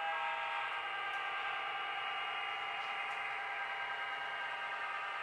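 Onboard sound decoder of a Broadway Limited Imports Paragon4 HO-scale EMD GP20 model locomotive playing its diesel engine sound through the model's small speaker as it runs. A steady, thin sound of several held tones with little low end.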